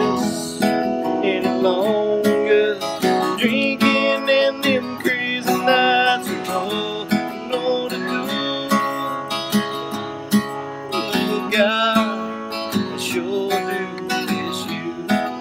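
Acoustic guitar being strummed, with a wavering melody line over it.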